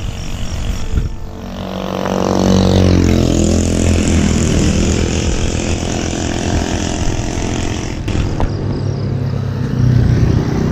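A motor vehicle passes close by on the road, its engine pitch falling as it goes past. Road noise continues afterwards, and another vehicle comes closer near the end.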